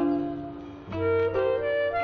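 Instrumental film soundtrack music: a melody of held notes over bass notes, dipping briefly before a new phrase begins about a second in.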